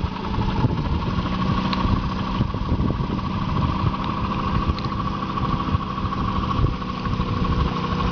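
Boat motor running steadily at low speed, a continuous drone with a steady hum over low rumble.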